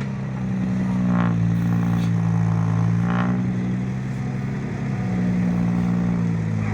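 Dump truck's diesel engine running steadily under load, its pitch sagging and rising slightly. Two brief higher-pitched bursts come about a second and three seconds in.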